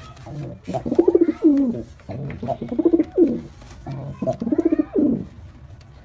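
White male domestic pigeon cooing: three rolling coos about a second long, each bending up and down in pitch. This is the bow-coo of a male puffed up in display.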